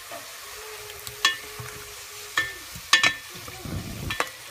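Beef pieces frying in oil with soy sauce and rice wine, a steady sizzle, stirred in the pan with a utensil that clacks against it a few times.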